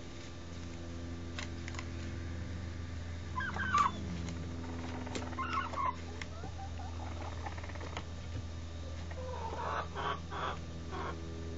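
Pet chicken giving short clucking calls: one about 4 seconds in, another a second and a half later, then a quick run of several near the end, over a steady low hum.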